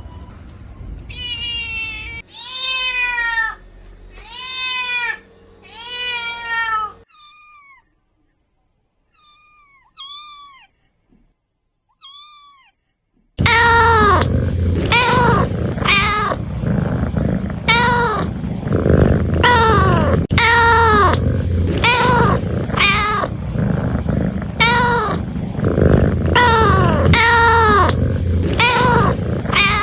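Kittens meowing: a few loud, high meows, then a stretch of faint little mews, then, from about halfway, a loud run of meows about one a second over background noise.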